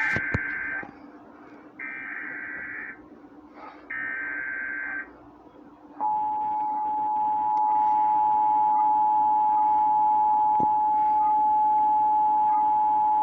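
Emergency Alert System tones heralding a flash flood warning: three short warbling SAME data bursts, each about a second long and about a second apart, the first already under way. About six seconds in, the loud steady two-tone attention signal (853 and 960 Hz) starts and holds.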